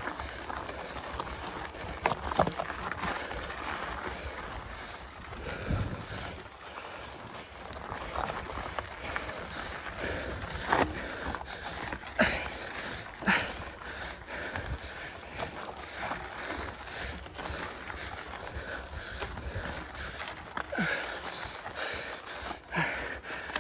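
Heavy breathing of a mountain biker pedalling uphill on a trail, with scattered clicks and rattles from the bike.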